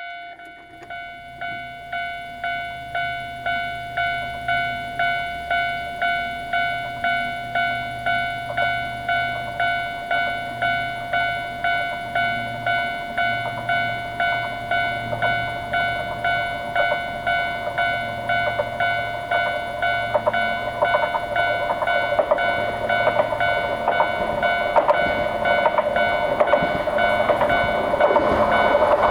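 Japanese level-crossing warning bell ringing at about two strikes a second, growing louder over the first few seconds. From about two-thirds of the way in, a Hojo Railway diesel railcar approaches, its rumble and wheel clatter rising to the loudest point at the end.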